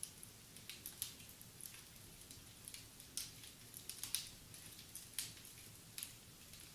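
Wood fire crackling in a fireplace: faint, irregular sharp crackles and pops, a few a second, over a soft hiss.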